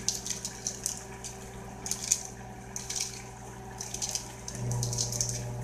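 Small kitchen knife slicing through arugula leaves held in the hand, a series of crisp little snips in short clusters. Under it runs a low steady hum that gets louder about four and a half seconds in.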